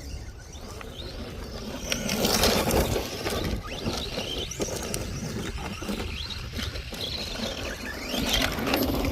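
ARRMA Vortex RC car's electric motor whining up and down in pitch as it accelerates and slows. Its tyres crunch over loose ground, with a few sharp knocks.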